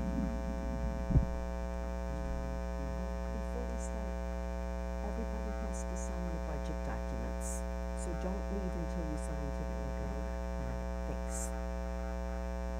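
Steady electrical mains hum and buzz on the microphone system, with faint voices murmuring under it and a single knock about a second in.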